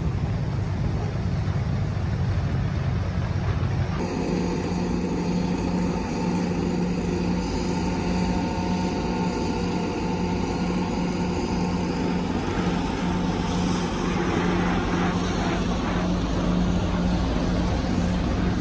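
Kobelco excavator's diesel engine running steadily under load. About four seconds in, the sound changes abruptly to a steadier, more even hum, with a little faint clatter in the last few seconds.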